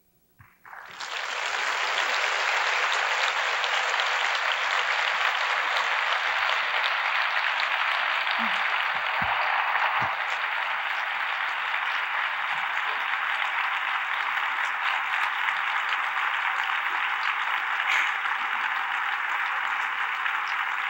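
Audience applauding steadily, the applause breaking out about a second in.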